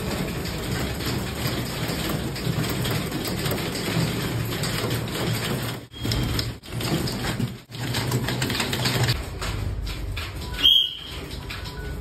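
Many manual typewriters typing at once: a dense, continuous clatter of overlapping keystrokes. A single loud bell ding sounds near the end.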